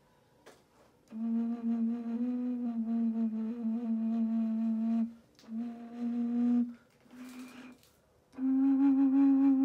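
A larger, low-pitched handmade clay xun (Chinese vessel flute) blown in held notes: a long steady note starting about a second in, a shorter one at the same pitch, a weak breathy attempt, then a slightly higher long note near the end.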